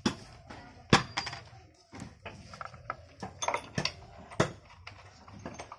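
Metal parts and hand tools clinking and knocking as an electric planer is worked on: a string of separate sharp clicks and taps, the loudest about a second in.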